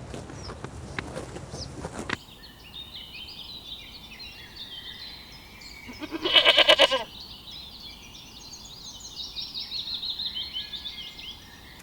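A sheep bleats once, loud and quavering, about six seconds in. Birds chirp and sing from about two seconds in onward.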